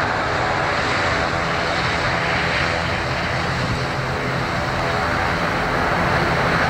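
Airbus A319 airliner's twin jet engines at take-off thrust as it lifts off and climbs out, a steady loud rushing noise with a low rumble underneath.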